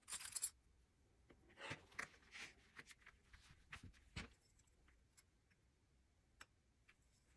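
Faint handling noise of quilted fabric: a short rustle at the start, then scattered soft rustles and light ticks as the fabric is turned and smoothed flat, dying away to near silence in the second half.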